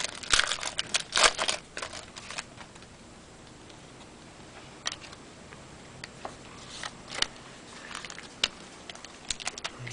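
Baseball trading cards being handled and flipped through by hand: irregular light clicks and rustles, busiest in the first couple of seconds, then a few scattered ticks.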